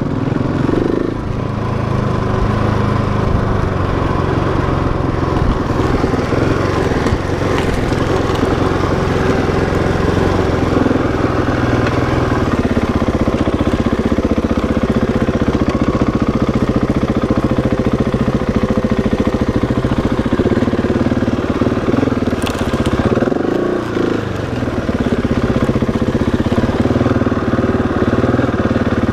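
Husqvarna 701 Enduro's single-cylinder engine running steadily while the bike is ridden along a dirt trail. The engine briefly eases off and picks up again about three-quarters of the way through.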